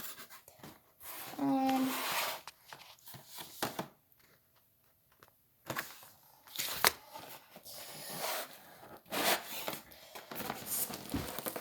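Cardboard packaging being torn and pulled off a box by hand, in several rough ripping bursts with sharp cracks, and a pause partway through. A brief vocal strain sound comes about a second and a half in.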